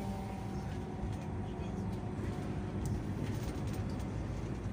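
Steady low engine and road rumble inside a moving coach's passenger cabin.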